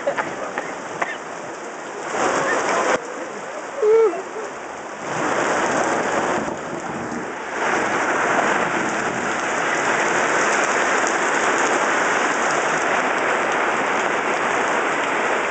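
Rain falling, an even hiss that turns steadier and louder about halfway through. A brief, loud pitched sound about four seconds in.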